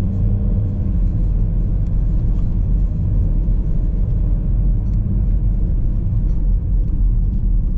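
Car engine and road noise heard from inside the cabin while climbing a hill road: a steady low rumble.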